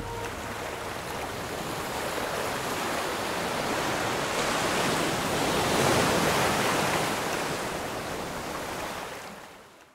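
Sea surf breaking and washing around rocks, a steady rushing that swells to its loudest a little past the middle, then fades out near the end.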